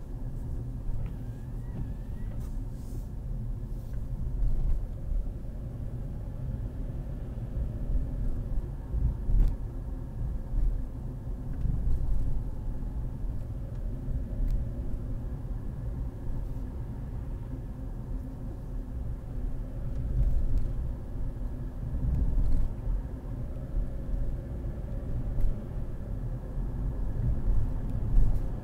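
Car driving through city streets, heard from inside the cabin: a steady low rumble of engine and tyre noise, swelling louder now and then, as over bumps and cracks in the road.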